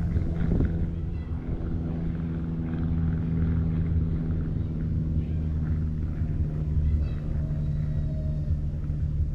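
Steady low hum of a running motor, holding an even pitch throughout.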